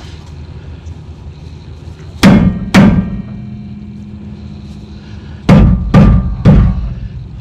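Rubber mallet striking a stuck rear brake rotor on a 2008 Ford F250 to beat it loose: two heavy blows about half a second apart, then three more about three seconds later. The rotor rings with a low steady tone after the second blow.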